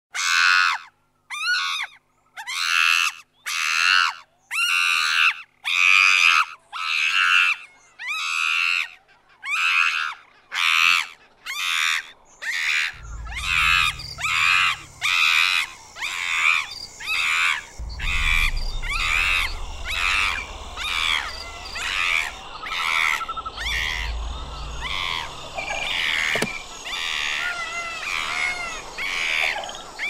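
Chimpanzee calling: a long run of loud, high-pitched calls, each rising and falling in pitch, repeated more than once a second. The calls quicken and run into each other in the second half, with a low rumble coming and going underneath.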